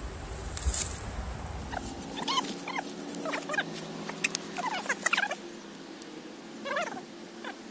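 Short, high animal cries in quick groups, beginning about two seconds in, over a low steady hum.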